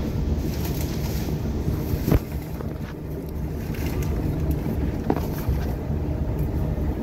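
Long Island Rail Road passenger train hauled by a DM30AC locomotive, running along the track with a steady low rumble. A sharp knock comes about two seconds in, and a fainter one about three seconds later.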